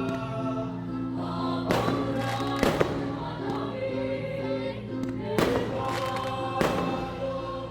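Fireworks bursting: four sharp bangs, spaced unevenly, over music with long held choral notes.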